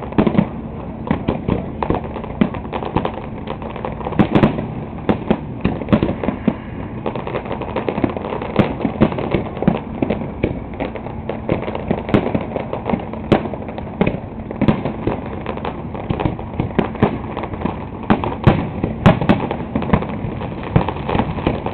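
Fireworks display: a rapid, unbroken barrage of aerial shell bursts and crackling reports, several bangs a second.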